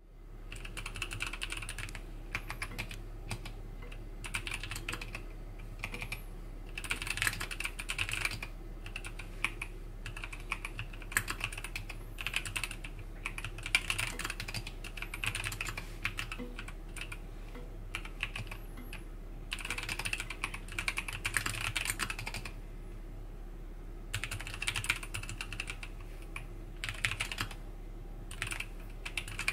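MelGeek Mojo84 mechanical keyboard with Kailh Box Brown tactile switches being typed on continuously, in flurries of fast keystrokes with a short lull about two-thirds of the way through. A steady low hum runs underneath.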